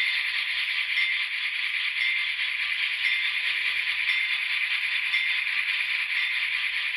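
Sound decoder in an N scale GE Dash 9 model locomotive playing its air bell, ringing about once a second over the steady sound of the idling diesel. The sound comes thin from the model's tiny speaker, with no bass.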